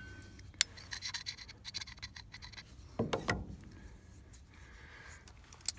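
Faint scratching and handling noises on wooden planks, with one short louder scrape about three seconds in as a round magnet and a stainless steel parts dish are moved about.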